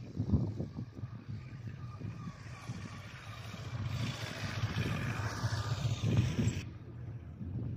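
Wind buffeting the microphone outdoors: an uneven low rumble, with a rushing hiss that builds in the middle and cuts off suddenly near the end.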